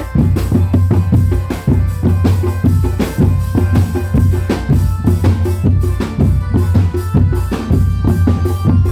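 Drum-band music: fast, dense drumming that keeps a steady beat, with a few held melodic notes above it.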